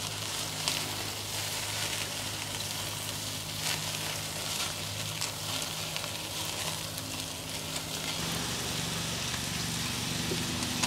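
Food sizzling and crackling in a hot pan, a steady hiss. A low steady hum comes in about eight seconds in.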